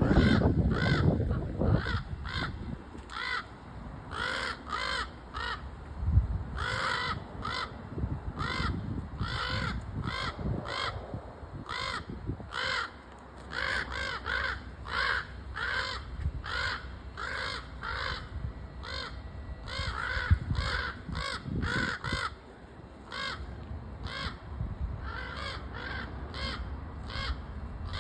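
Crows cawing over and over, short harsh calls about two a second, several birds overlapping. A low rumble is heard in the first two seconds, with a couple of dull thumps later.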